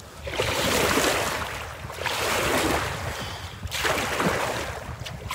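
Water rushing and splashing around a kayak's hull as it heads into wind-driven waves, in three surges about a second and a half apart, with wind rumbling on the microphone.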